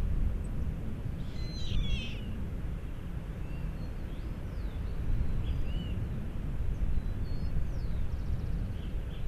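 Small birds chirping and whistling in short scattered calls, with a louder burst of calls about two seconds in, over a steady low rumble of wind on the microphone.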